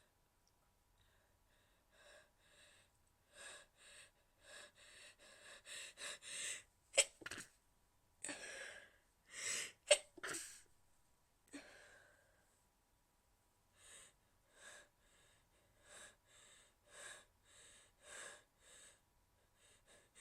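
A woman's stifled sneezes: a run of short in-breaths that quicken and grow louder, then two sharp, held-back sneezes about three seconds apart, followed by another run of short, hitching breaths.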